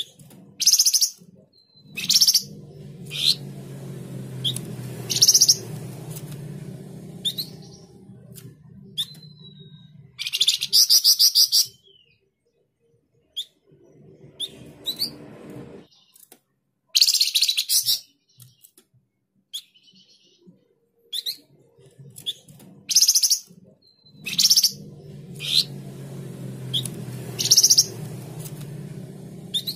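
Flamboyan songbird calling: short, sharp, high chirps every second or two, with two longer rapid trills about ten and seventeen seconds in. A low hum comes and goes underneath.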